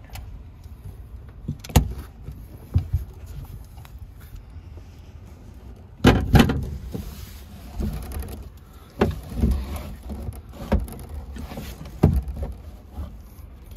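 Clunks and scraping against metal as a heavy battery is handled and slid into a metal battery cabinet. There are two sharp knocks early, then from about halfway a stretch of rumbling scrapes broken by four or five knocks.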